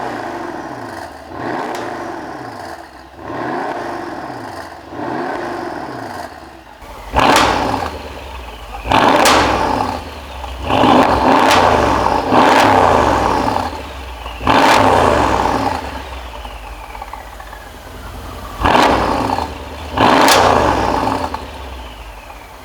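Mercedes-AMG CLS 63 S's twin-turbo V8 being revved repeatedly in place through a newly fitted Brabus valved exhaust. A run of lighter blips comes first, then from about seven seconds in about seven louder, sharper revs, each falling back toward idle.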